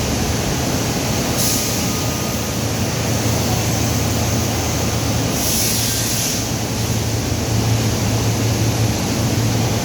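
Steel pipe factory machinery running with a loud, steady low hum and dense mechanical noise. Two short hisses cut through, a brief one about a second and a half in and a longer one of about a second near the middle.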